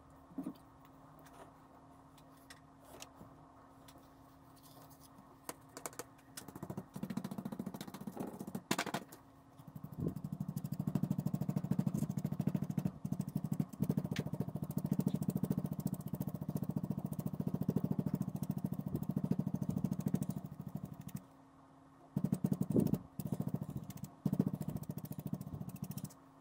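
Dry sea sponge dabbed quickly and repeatedly onto a painted foam insulation board, a fast even run of soft taps that begins about six seconds in, with a few shorter bouts near the end.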